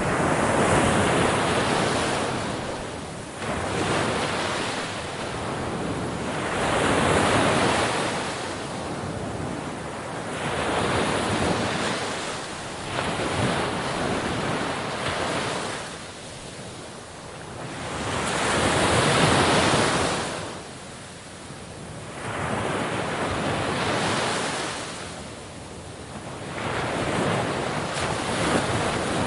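Sea waves breaking on a shore: a rushing wash of surf that swells and falls away, one surge after another every few seconds.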